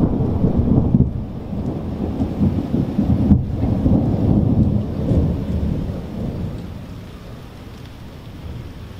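Rolling thunder rumbling low and uneven, then dying away over the last few seconds, with rain falling.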